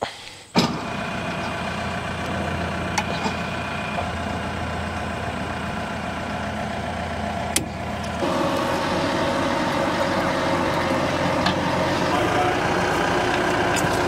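Large diesel engine idling steadily. It comes in abruptly about half a second in, its tone shifts about eight seconds in, and a few light clicks sound over it.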